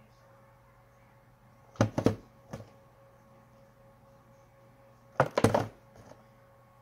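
A cardboard Funko Pop box with a plastic window being handled: two short clusters of knocks and scrapes, one about two seconds in as it is turned around, and a louder one a little past five seconds as the box is set down on the table. A faint steady hum runs underneath.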